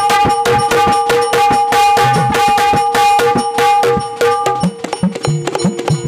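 Live instrumental band music: an electronic keyboard holds steady notes over fast, busy drumming. About four and a half seconds in, the keyboard drops out and the drums go on alone, a little softer.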